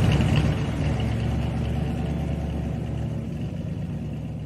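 Vehicle engine idling with a steady low rumble that slowly fades out.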